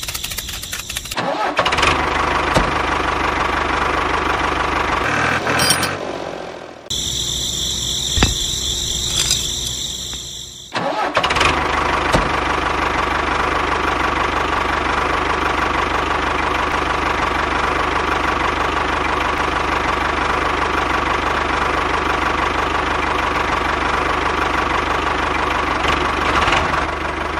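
Tractor engine running steadily, building up over the first second or two. The sound changes abruptly twice, about seven and eleven seconds in.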